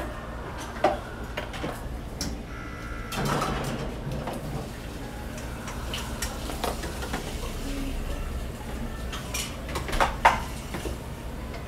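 Ceramic bowls and dishes clinking and knocking against serving trays, with metal tongs clicking, as set meals are plated by hand: scattered light knocks, the sharpest a few clinks near the end.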